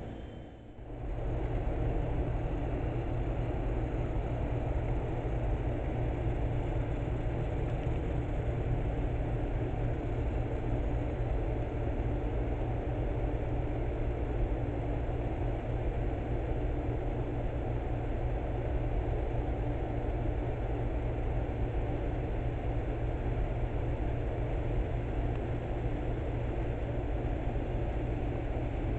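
N-scale model coal train running past on the layout: a steady rumble from the small wheels on the rails and the locomotive motor. The sound briefly dips about half a second in.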